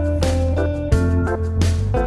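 Instrumental background music: sustained notes changing in steps over a strong bass line, with a percussion hit about once a second.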